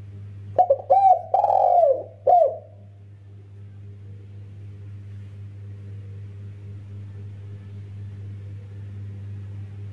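Spotted dove cooing: one phrase of several short arching coos with one longer, drawn-out note in the middle and a final short coo, all within about two seconds, then a long pause. A steady low hum runs underneath.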